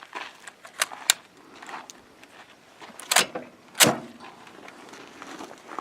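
Bullpup rifle being racked by hand: a few light metallic clicks, then two sharp clacks about two-thirds of a second apart.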